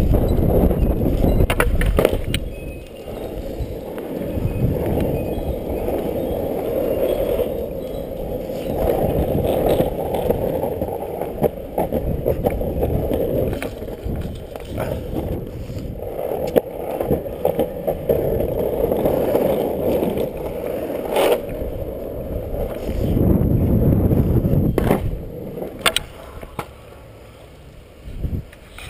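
Loaded Dancer longboard rolling on asphalt: a steady wheel rumble that swells and fades, broken by a few sharp clacks from the board. Near the end the rumble dies away as the board is picked up.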